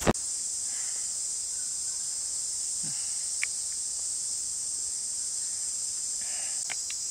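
Steady, high-pitched chorus of forest insects, with a sharp click at the very start and a few faint short taps and rustles.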